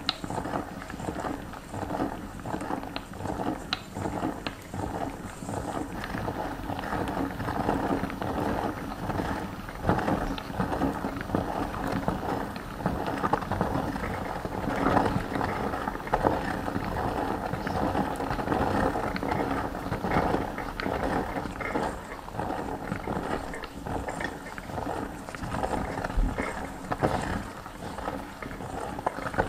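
Hand-cranked metal meat grinder turning as it grinds marshmallows and pushes them out through the plate. The sound is continuous and uneven, made up of many small, rapid clicks.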